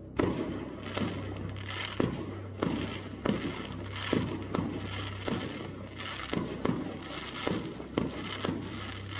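Aerial fireworks bursting in a rapid, irregular string of bangs, about two a second.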